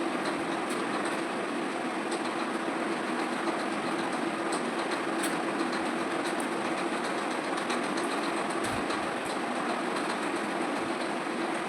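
Electric fan running steadily at a low setting, a constant whir with a hum, with soft irregular clicks of chewing and eating over it.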